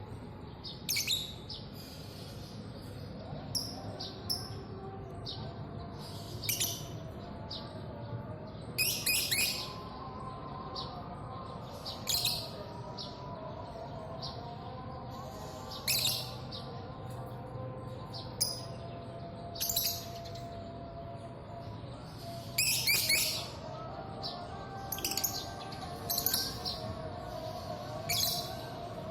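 Small songbird chirping: short, high calls repeated every second or two at irregular intervals, some in quick pairs, over a faint steady background.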